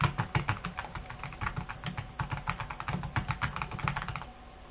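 Fast typing on a computer keyboard: quick, irregular keystrokes that stop shortly before the end.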